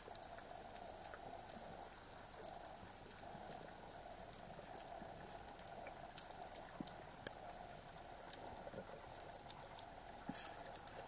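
Faint underwater ambience picked up by a camera in its housing: a steady hiss with scattered small clicks and crackles at irregular times.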